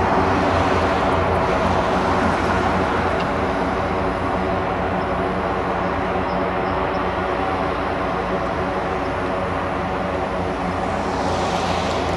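1973 Cessna A185F's six-cylinder Continental IO-520 engine and propeller at takeoff power as the plane climbs away, a steady drone slowly fading. A hiss grows near the end.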